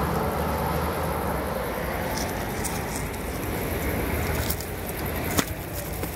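Steady rushing outdoor noise with a low rumble, broken by a few sharp clicks, the loudest about five seconds in.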